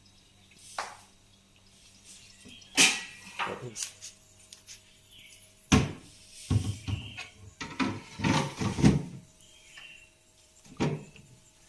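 Knocks and clatters of objects being handled and set down: a few separate sharp knocks, and a busy run of clattering knocks in the middle.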